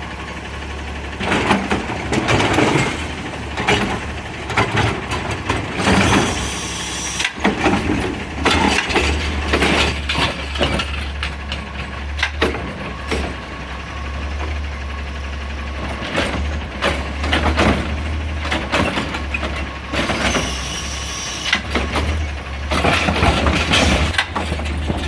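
CNG-powered Autocar garbage truck with a Heil Rapid Rail automated side-loader running steadily while the arm works, with repeated bursts of clatter and hiss from the arm and cart handling over the engine.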